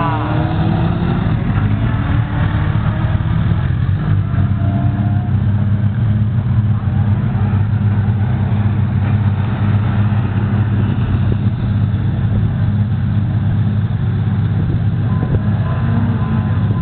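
Motorcycle engines running: a steady low drone from an engine close by, with bikes revving briefly as they ride up. A thin steady whine comes in near the end.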